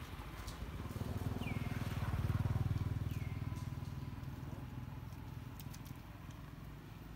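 An engine passing by, swelling about a second in and fading away over the next few seconds. Two short high chirps sound over it.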